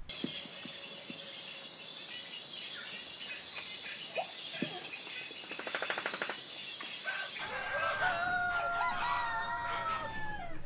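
Roosters crowing from about eight seconds in, several long crows overlapping, over a steady high-pitched chorus of night insects.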